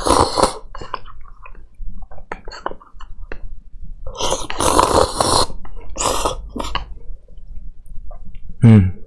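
A man slurping instant cup noodles in several noisy bursts; the longest comes about halfway through and lasts over a second. Small clicks fall between the slurps.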